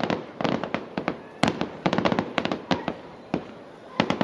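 Fireworks display: aerial shells bursting in quick volleys of sharp bangs, several a second, with a single loud bang about one and a half seconds in and another volley near the end.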